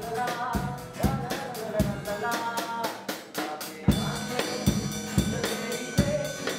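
Drum kit and acoustic guitar playing together, with bass drum, snare and cymbal hits. About four seconds in, the drumming settles into a steady beat of about two hits a second, with cymbals ringing over it.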